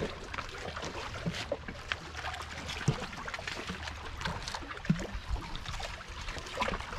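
Lake water lapping against shoreline rocks, with scattered small splashes and knocks, over a low rumble of wind on the microphone.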